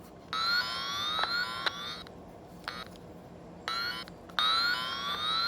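Electronic circuit tester's repeating rising chirp tone, about three chirps a second, sounding in bursts that start and stop several times, with a couple of sharp clicks.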